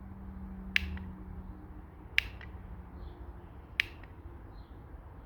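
Garage door remote button pressed repeatedly, three sharp clicks about a second and a half apart, while programming it to a LiftMaster opener in learn mode.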